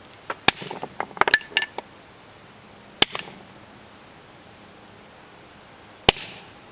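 Small sledgehammer striking the back of an axe head whose blade rests on a stone, metal on metal, to split the rock. A quick run of metallic clinks and knocks in the first two seconds, then two single hard strikes about three seconds apart, each with a short ring.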